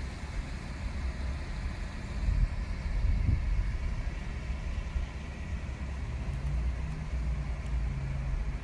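Car running: a steady low engine and road rumble, swelling a little about three seconds in, with a faint steady hum near the end.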